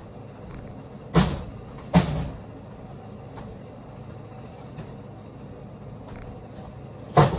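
Plastic Gatorade bottles being set down on the floor: three knocks, two close together about a second apart near the start and one near the end, over a steady low hum.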